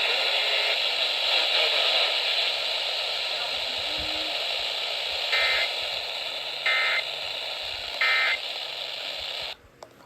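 Radio receiver hiss from an FM station relaying an Emergency Alert System warning, then three short two-tone data bursts a little over a second apart: the EAS end-of-message code. The radio audio cuts off abruptly just before the end.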